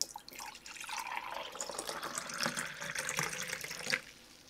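Water being poured into a ceramic mug close to the microphone, a splashing, trickling pour of about four seconds that ends with a short click.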